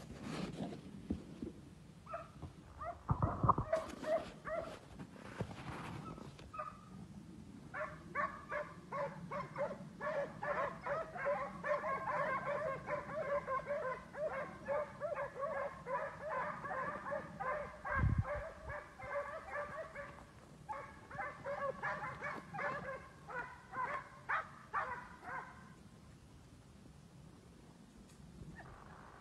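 Zagar scent hounds giving tongue on a trail: a few scattered yelps at first, then rapid, continuous baying that breaks off near the end.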